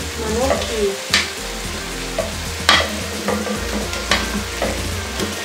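Pieces of browned chicken being scraped with a wooden spatula from a bowl into a hot frying pan, sizzling steadily, with about five sharp knocks from the spatula and the pieces landing.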